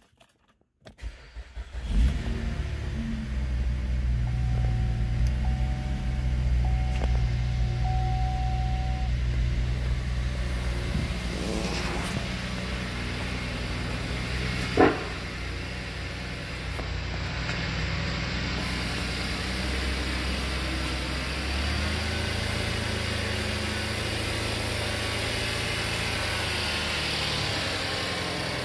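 2014 GMC Terrain's 3.6-litre V6 cranking briefly and starting about two seconds in, then idling steadily. A single sharp knock about halfway through.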